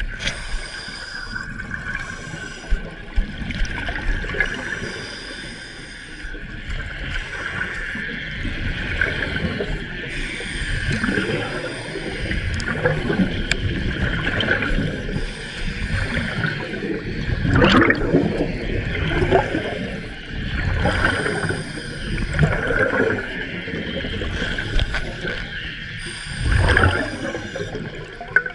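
Underwater recording of air bubbles gurgling in irregular bursts, the exhaled breath of a diver at about 20 metres depth.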